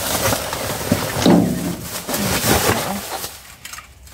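Plastic bags and rubbish rustling and crinkling as a litter-picker grabber pokes through them in the bottom of a metal dumpster, dying away near the end.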